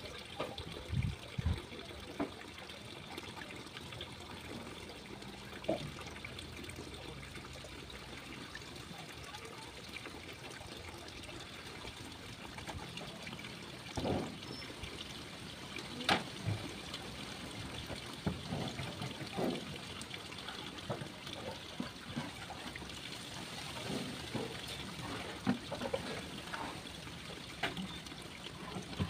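Water trickling steadily from a hose into a steel basin.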